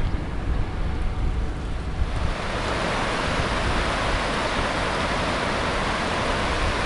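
Wind rumbling on the microphone, then from about two seconds in the steady rush of river water running over shallow rapids.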